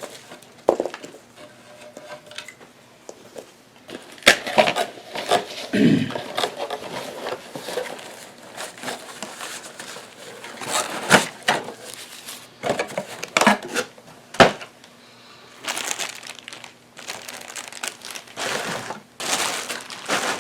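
Packaging being unwrapped by hand: irregular crinkling and rustling of plastic wrap, with a few sharp clicks as the contents are handled.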